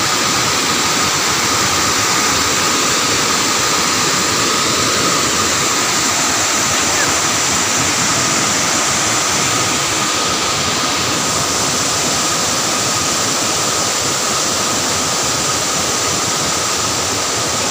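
Water spilling over the gates of a small river dam, a steady rushing that does not change.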